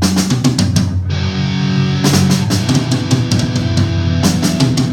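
Rock band playing live: a quick run of drum hits, then distorted electric guitar and bass holding chords over the drum kit, the chord changing twice.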